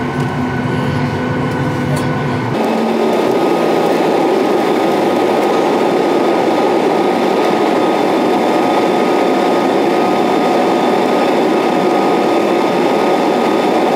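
Jet airliner heard from inside the cabin: a steady engine hum, then, after a cut about two and a half seconds in, a louder, even rush of the jet engines at takeoff power as the plane rolls down the runway and climbs.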